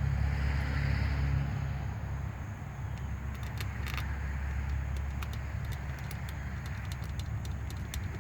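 Steady low mechanical hum, loudest for the first second and a half, with a scatter of faint light clicks in the second half.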